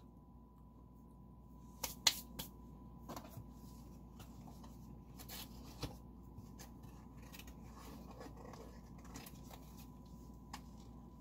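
Faint handling of snack packaging: a few sharp crinkling clicks about two seconds in, then scattered small clicks and soft rustles.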